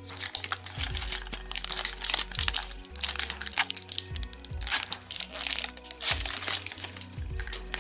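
Crinkling and crackling of a thin plastic wrapper being peeled off a toy capsule by hand, in quick irregular bursts, over background music.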